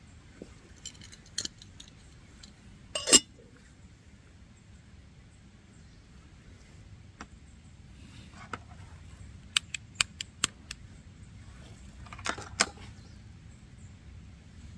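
Small hard objects being handled, clinking and knocking: scattered sharp clicks, one loud knock about three seconds in, a quick run of clicks around ten seconds in and another cluster near the end.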